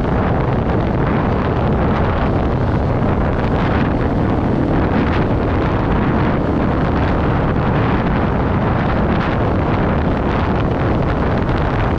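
KTM 690 Enduro's single-cylinder engine running steadily while the bike is ridden, with wind buffeting the microphone.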